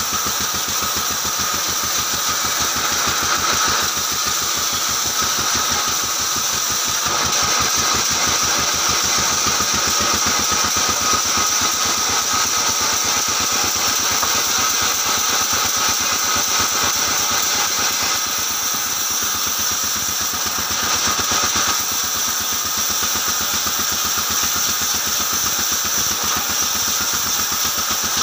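Vertical band sawmill running and ripping a long wooden plank lengthwise: a steady high whine over a rapid, even low beat from the machine's drive.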